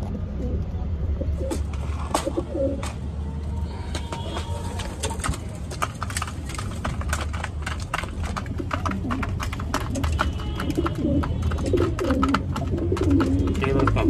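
Domestic pigeons pecking grain from a plastic feeding trough, a rapid clatter of beak clicks that thickens from about four seconds in, with cooing that grows louder near the end.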